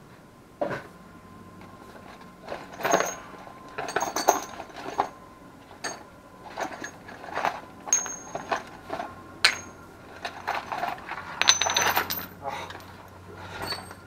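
Loose metal hardware clinking and rattling as it is handled and spills out of a parts box: an irregular scatter of sharp clicks, some with short, high metallic rings.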